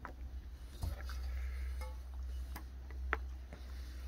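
A dog and a cat eating small raw fish off wooden deck boards: scattered short clicks and crunches of chewing and of fish knocking on the boards, over a steady low rumble.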